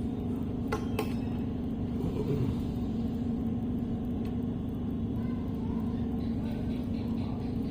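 Steady low background rumble with a constant hum, and a couple of light clicks about a second in.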